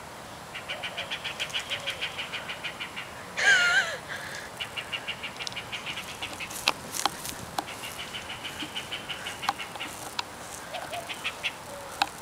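A bird in the trees calling in alarm: runs of rapid repeated notes, about ten a second, broken by a loud harsh wavering call about three and a half seconds in and another at the very end. A few sharp clicks sound around the middle.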